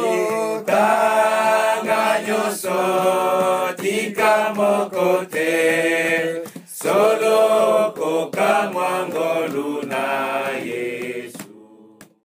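Group of voices singing a chant-like song together, fading out near the end.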